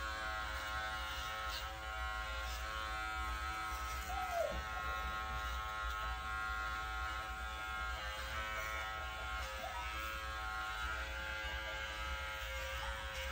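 Electric dog-grooming clipper with a #30 blade running with a steady buzz while trimming the hair between a small dog's paw pads. A short squeak comes about four seconds in.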